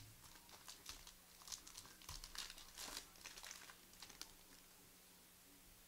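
Faint crinkling and tearing of a plastic trading-card pack wrapper as a pack of football cards is torn open, an irregular run of crackles that stops a little over four seconds in.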